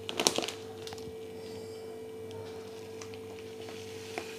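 Plastic bag of granulated sugar crinkling in a short crackly burst near the start as sugar is poured into a ceramic jar, with a single click near the end. A steady faint low hum runs underneath.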